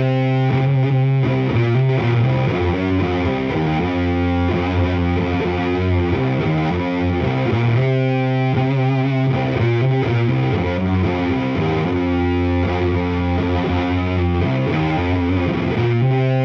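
Heavily distorted electric guitar, a Gibson Les Paul played through a 1971 Sunn Sceptre 60-watt amplifier and its 3x12 cabinet, playing a slow doom metal riff of long, held chords that change every second or two.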